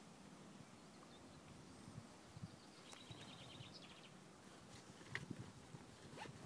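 Near silence: faint outdoor ambience, with a brief, rapid, high chirping trill, likely a bird, about three seconds in and a couple of faint clicks near the end.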